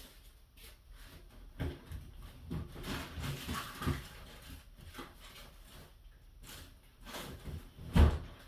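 Handling noise from the removed skateboard griptape being ripped off and thrown away: rustling and scattered light knocks, then one loud thump about eight seconds in.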